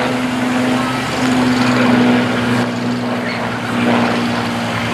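Two Supermarine Spitfires flying past overhead, their V12 piston engines making a steady drone that swells a little about two seconds in.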